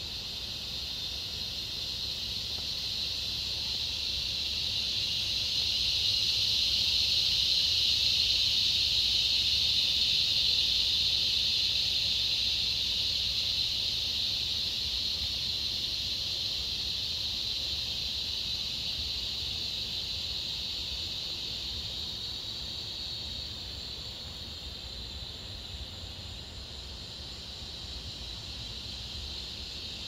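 Chorus of cicadas buzzing in one continuous high-pitched drone, swelling to its loudest about a third of the way in, then slowly fading.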